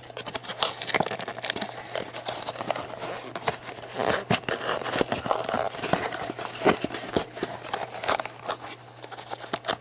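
A cardboard D&D Miniatures Deathknell booster box being torn open by hand: crinkling and tearing of the cardboard, with many small clicks and scrapes of the packaging.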